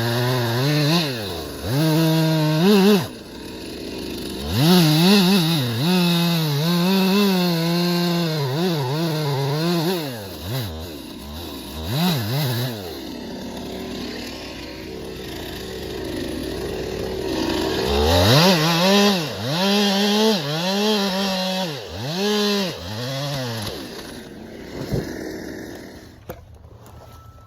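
Stihl chainsaw felling a cherry tree, its engine revving up and down in the cut. It drops to a lower steady run for a few seconds midway, revs again, and falls quiet near the end.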